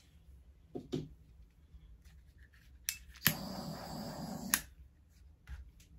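Handheld butane torch clicked alight, its flame hissing steadily for about a second and a half over the wet acrylic paint before it is shut off with a click.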